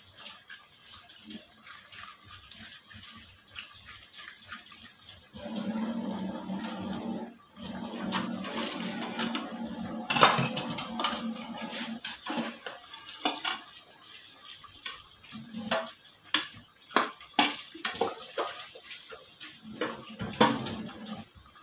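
Fish escabeche in soy-sauce broth bubbling at a simmer in an aluminium pan, with sharp clinks and knocks of a metal utensil against the pots from about halfway through.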